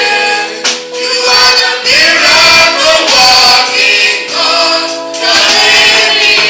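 Gospel singing: voices sing phrase by phrase over held instrumental chords.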